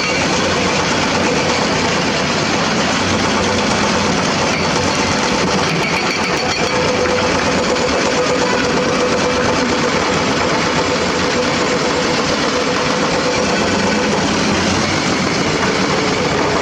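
Hitachi Zaxis 200 excavator's diesel engine running steadily at an even level.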